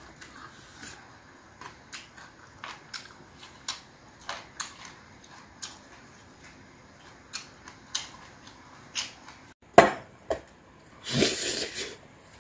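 Close-miked eating: chewing with a run of small sharp mouth clicks, and chopsticks tapping a stainless steel bowl of bibimbap. A sharp knock comes about ten seconds in, and a louder noisy burst of just under a second follows near the end.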